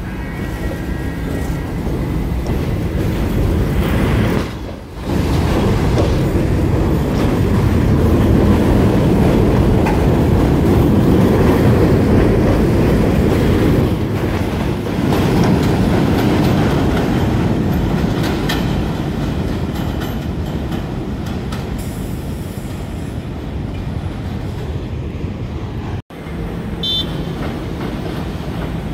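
New York City subway train running through the station, a steady rumble of wheels on the rails that is loudest midway and eases off toward the end. A short high beep sounds near the end.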